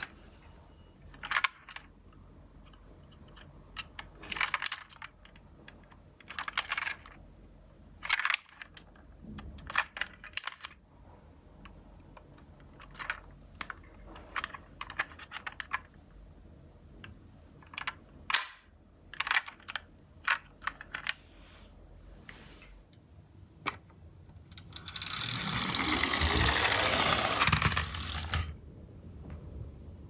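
A diecast toy police van being handled: a string of sharp clicks and clacks as its plastic doors and parts are worked and it knocks against the box. About 25 seconds in, its wheels and motor whir loudly for about four seconds as it rolls along the floor, the pitch sweeping up and down before it stops.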